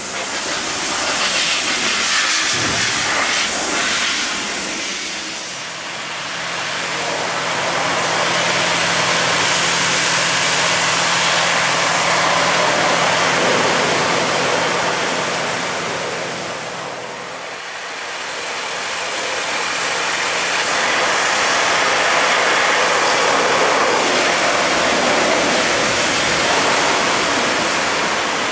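High-pressure washer jet hissing as it blasts water over a bare Isuzu 4HL1 diesel engine, easing off briefly twice as the spray is moved. A steady low hum runs beneath the spray for much of the time.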